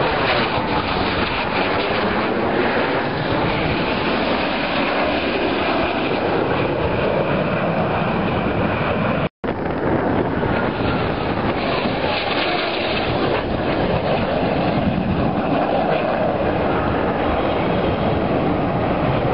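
F/A-18 Hornet jet fighter's engines running loud and continuous as it flies past, the noise swishing with slow sweeps in pitch as the aircraft moves across the sky. The sound drops out for an instant about nine seconds in.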